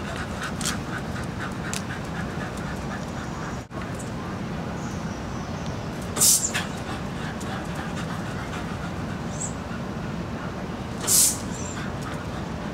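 A Bedlington terrier moving about on stone paving over a steady outdoor background hum. Two short, loud hissing sounds stand out, about six and about eleven seconds in.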